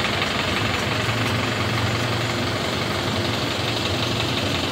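A steady engine hum, even and unchanging, with a constant hiss over it.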